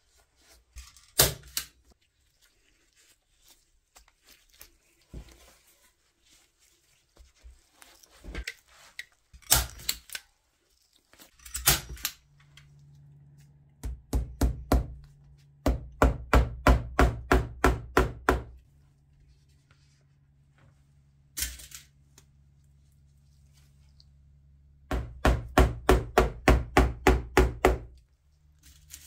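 Small hammer tapping along the leatherette-trimmed rim of a wicker pram, fixing the trim down: scattered single knocks at first, then two quick runs of light strikes, about four a second, around the middle and near the end.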